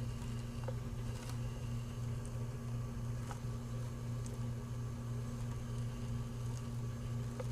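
Steady low electrical hum, with a few faint scattered ticks.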